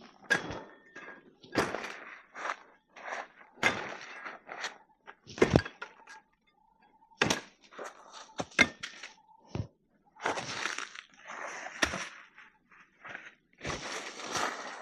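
Irregular knocks, snaps and rustling from things being handled at close range, a dozen or so sharp hits spread unevenly with short crunchy, scraping stretches between them.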